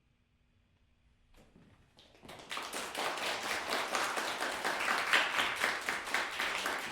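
Audience applauding after near silence: the clapping starts faintly about a second and a half in and swells to full applause within about a second.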